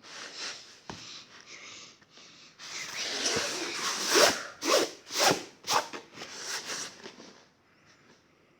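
Hands squishing and kneading a sticky flour-and-water dough slime, a run of noisy rubbing and squishing strokes that are busiest and loudest in the middle and die away about a second before the end.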